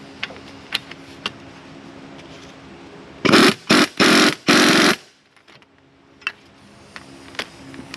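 Power impact wrench run in four short bursts, turning a strut spring compressor's threaded rods to squeeze the coil spring down further. Before the bursts there are a few light tool clicks.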